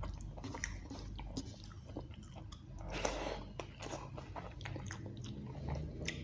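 Close-miked chewing and biting of rice with beef curry: many short, wet mouth clicks, with a longer noisy stretch about three seconds in.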